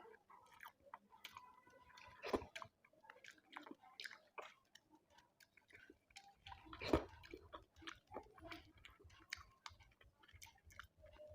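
Close-up chewing and wet mouth sounds of a person eating rice with fish and egg curry: many small irregular clicks, with two louder sharp clicks, one about two seconds in and one about seven seconds in.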